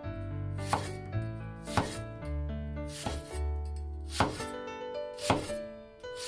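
Chinese cleaver slicing through a new onion and striking a wooden cutting board, one crisp chop about every second, over background music.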